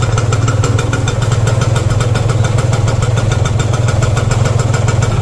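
Yamaha TZM's single-cylinder two-stroke engine running fast and steady with an even, rapid pulsing, held at around 2,000 rpm while it warms up after a carburetor rebuild.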